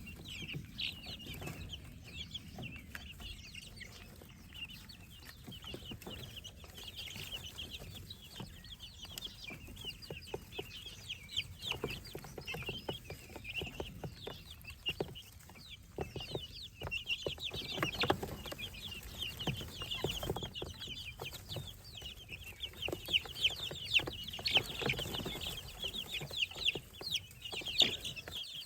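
A brood of baby chicks, guinea keets and ducklings peeping continuously, many short high peeps overlapping, with a few soft knocks; the peeping grows louder in the last third.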